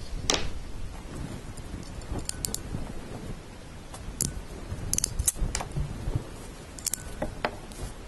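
Sharp clicks and small metallic snaps from a hand crimping tool being worked, as a spade terminal is set in its jaws and a stripped wire is fed into it. The clicks come scattered, some in quick groups of two or three.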